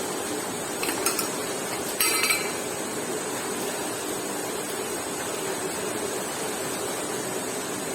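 Two short metallic clinks of tools or bike parts being handled, about one second and two seconds in, over steady background noise.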